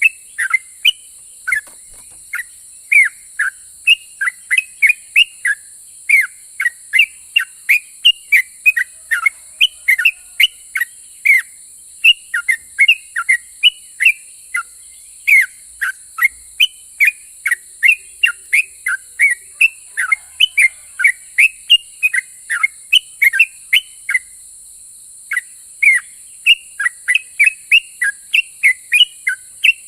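Yellow-vented bulbul (trucukan) singing continuously: a fast run of short, clear whistled notes, most sliding downward, about three a second, with a brief pause about 24 seconds in. A steady high hiss runs underneath.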